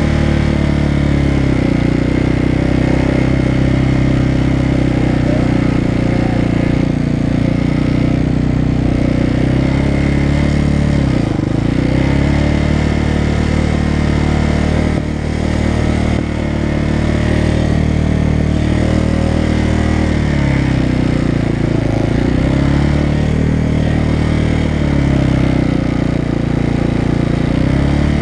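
Motorcycle engine running as the bike is ridden off at low speed. Its pitch dips and climbs back a few times with throttle changes.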